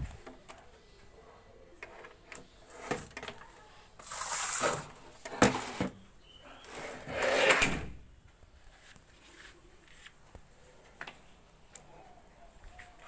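Household handling noises: two scraping, sliding sounds about a second long each, a few seconds apart, among scattered sharp clicks and knocks.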